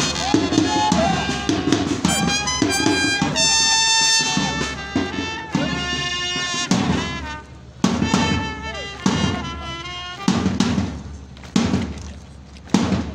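Brass band music with trumpets and drums. From about eight seconds in it thins to a single drum beat struck about once every second and a quarter, a marching beat.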